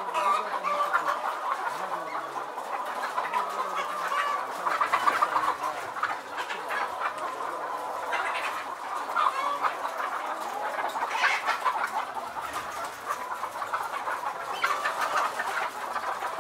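A large flock of caged laying hens clucking and chattering all together, a continuous din of many overlapping calls.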